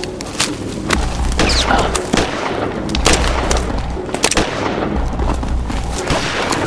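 Dark horror-film soundtrack: a deep bass pulse about once every two seconds under scattered sharp hits.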